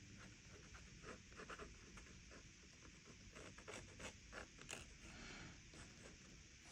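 Faint scratching of a drawing tool on sketchbook paper, a run of short irregular strokes as lines are drawn.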